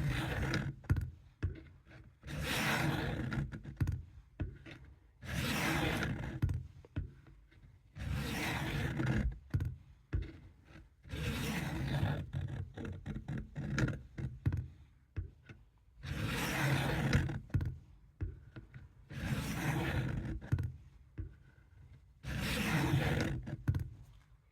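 Steel blade of a vintage Camillus Trailblazer fixed-blade knife drawn over a coarse sharpening stone: long, even scraping strokes about every three seconds, with small clicks and taps between strokes as the blade is repositioned.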